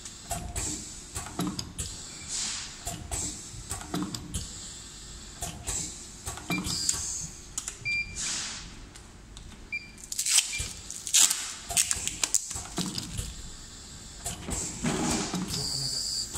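Pad printing machine running through its print cycles: the ink-cup slide shuttles across the cliché plate and the silicone pad drops onto a plastic part. The run is marked by repeated short hisses of air and metallic clicks and clacks about every second, over a low machine hum.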